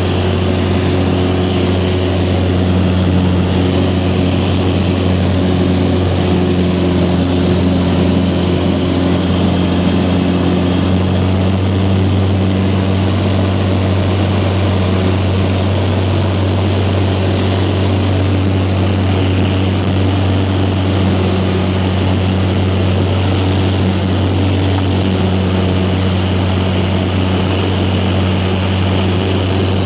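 Light aircraft's engine and propeller droning steadily, heard from inside the cabin: a constant low hum with overtones over a wash of rushing air.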